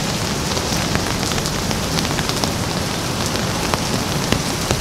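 Steady rain falling, a dense hiss with scattered sharper ticks of individual drops.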